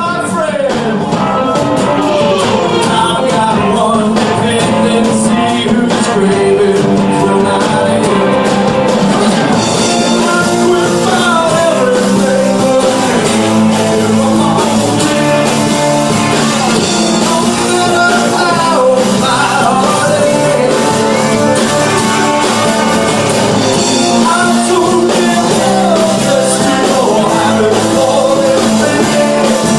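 A live country band playing a song with a lead vocal over guitar and drums, recorded on a cellphone in the room.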